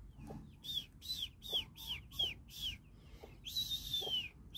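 Young chicken chicks, about four to five weeks old, peeping: a run of about seven short, high, falling peeps, then one longer drawn-out peep near the end.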